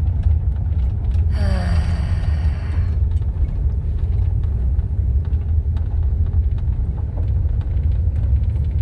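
Steady low rumble of an RV driving slowly on a gravel road, heard from inside the cab, with scattered faint ticks of gravel under the tyres. About a second and a half in, a short squeak falls in pitch and lasts just over a second.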